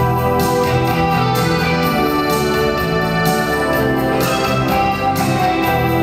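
Live electric pop band playing through a PA: sustained organ-like electric keyboard chords over electric guitars and bass, with a steady beat about once a second.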